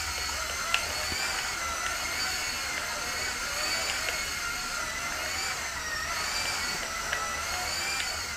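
Eachine E130 mini RC helicopter's electric motors and rotor whining steadily, the pitch wavering up and down as the control sticks are mashed. A few faint ticks are heard along the way.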